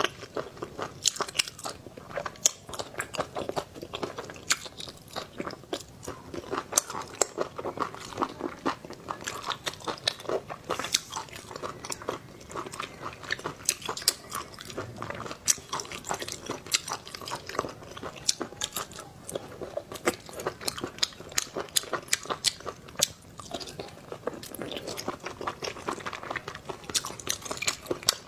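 Close-miked chewing of spicy braised octopus: a steady run of irregular wet mouth clicks and bites as the tentacles are chewed.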